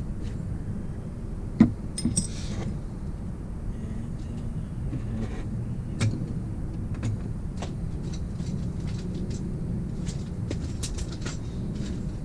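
Metal engine parts and tools clinking and tapping while a Falcon 911 bicycle engine is taken apart by hand, with a sharp knock about one and a half seconds in and a run of small ticks near the end, over a steady low rumble.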